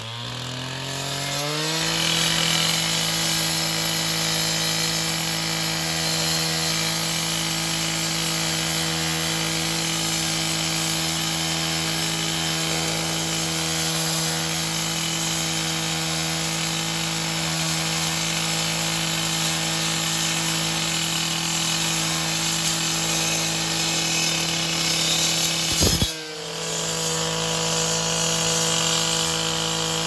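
Stihl TS 800 two-stroke cut-off saw with a 400 mm diamond wheel, revving up over the first couple of seconds and then running steadily at full throttle as the wheel grinds through concrete. Near the end the engine dips for a moment and picks back up.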